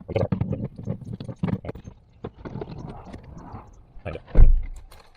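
Handling noise: a run of quick clicks, knocks and rustling, then one loud, dull thump about four and a half seconds in.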